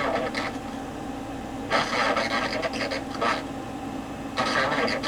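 Distorted, raspy voice reading an Emergency Alert System message through poor-sounding TV speakers, too garbled for the words to be made out. It comes in stretches with short pauses between.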